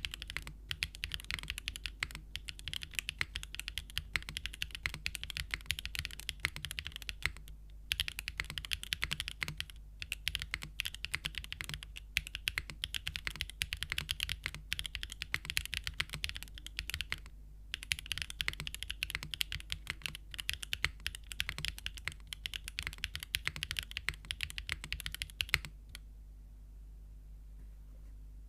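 Geonworks F2-60 mechanical keyboard with Gateron Smoothie linear switches in an aluminium plate, o-ring mounted with no foam, typed on rapidly and continuously. The typing pauses briefly a few times and stops about three seconds before the end.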